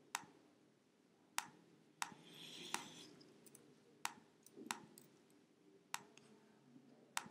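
Computer mouse and keyboard clicks: about eight sharp single clicks at irregular intervals, as menu items are chosen and numbers are typed into a form.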